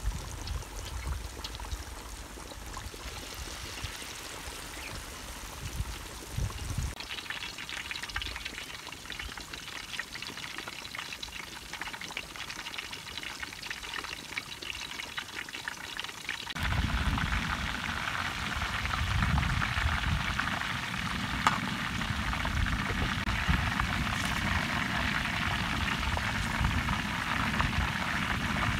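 Chicken deep-frying in a large pot of hot oil: a steady crackling sizzle. It steps up abruptly twice, and from a little past the middle it is louder and fuller, with a low rumble under it.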